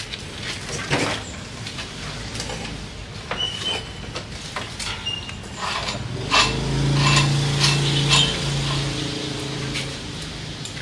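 Metal clicks and knocks of a water pump being fitted by hand to a mini tiller. About six seconds in, an engine starts a steady hum that runs for about four seconds and then stops.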